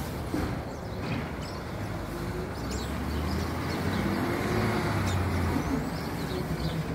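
Garbage truck engine running up the street: a low rumble and hum that builds through the middle and eases off near the end.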